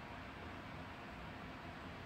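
Faint steady hiss with a low hum: room tone, with no distinct sound from the handwork.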